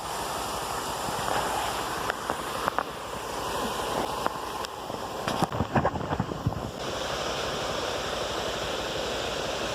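Steady rush of a waterfall, with a few scattered short clicks and knocks in the middle.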